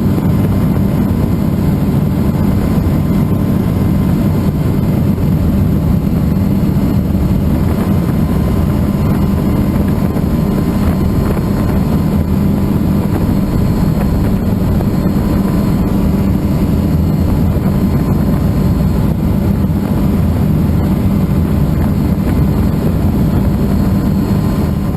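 Helicycle kit helicopter's Solar T62T-32 gas turbine and rotor running, heard from the pilot's seat: a loud, steady low drone with a faint high whine over it. The sound begins to fade right at the end.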